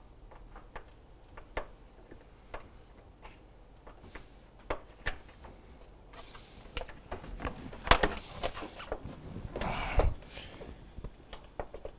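Scattered small plastic clicks and knocks as refrigerator wiring harness connectors are plugged together and the plastic back panel is handled. They grow busier from about seven seconds in, with a sharp knock near eight seconds and a scraping knock around ten seconds.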